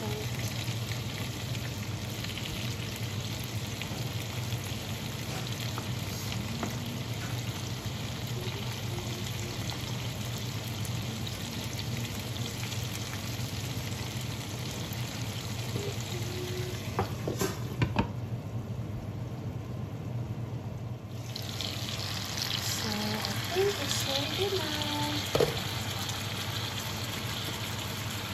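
Salmon fillets, asparagus and cherry tomatoes frying in a non-stick pan, a steady sizzle that drops away for a few seconds past the middle and then comes back. A few sharp knocks of a spatula against the pan, two close together past the middle and one more near the end.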